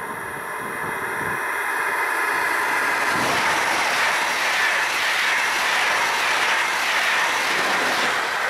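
ICE high-speed train passing close at speed: a rushing noise of wheels and air that grows over the first three seconds and stays loud as the carriages go by.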